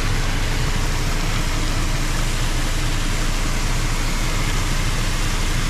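Rosenbauer airport fire truck pumping water through its roof turret: a steady, loud rush of the water jet over the low drone of the truck's engine driving the pump.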